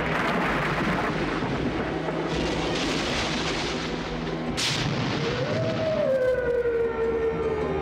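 Dark orchestral horror title music mixed with thunder-like sound effects. There is a sharp crack about four and a half seconds in, then a long tone that slides slowly down in pitch.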